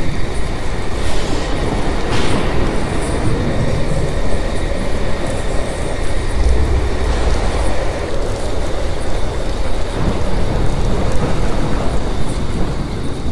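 Thunderstorm sound effect: a loud, continuous rumble of thunder with a hiss over it.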